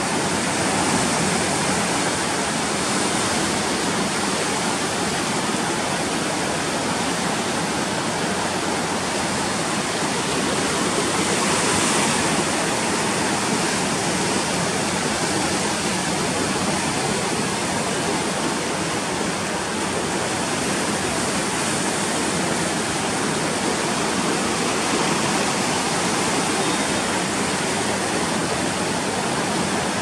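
The Sapta Koshi river in flood at danger level, its water rushing steadily past the barrage. The sound is a continuous, even rush of moving water with no let-up.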